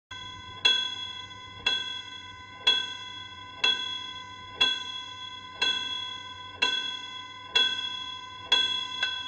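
Horror-film tension sound effect: a bell-like metallic tone struck about once a second, nine times, each strike ringing on until the next over a faint low hum.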